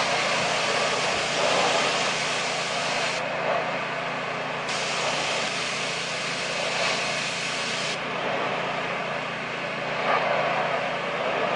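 Pressure washer running steadily: an even hiss of spray over a constant motor hum, blasting softened, stripper-loosened coating off the deck boards.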